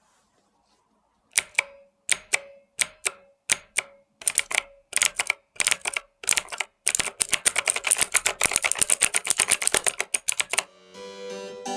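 Mechanical keyboard with Outemu Blue clicky switches, a sharp click on each keystroke. After a brief quiet start, single keys are pressed one at a time about twice a second, then about seven seconds in comes a fast burst of rapid typing that stops near the end, where music comes in.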